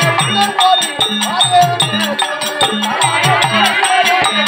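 Therukoothu folk-theatre accompaniment: a barrel drum beating a steady pattern of about two strokes a second, jingling percussion, and a wavering melody over steady held tones.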